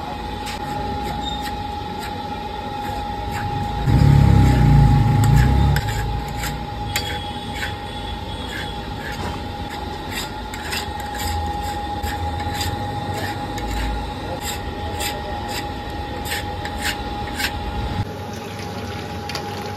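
A flat metal scraper scraping and tapping against a large iron kadhai of reducing milk, with many short scrapes and clicks, as the cream layers are pushed up the pan's sides for lachha rabri. A steady high hum runs under it, and a loud low rumble comes about four seconds in.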